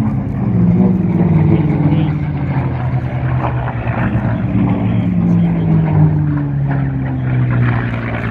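V-12 piston-engined race planes, Allison- and Merlin-powered, flying past at speed. Their overlapping engine drones fall slowly in pitch as they go by and head away.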